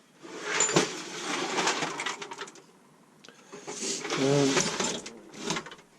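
Small metal hand tools and sockets rattling and clattering as they are handled and tipped onto a bench, in two bursts. A short pitched tone sounds about four seconds in.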